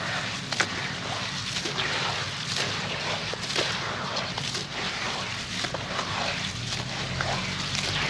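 Hands squeezing and crumbling wet, gritty red mud in a tub of muddy water: wet squelching and sloshing, with many small crackles and clicks throughout.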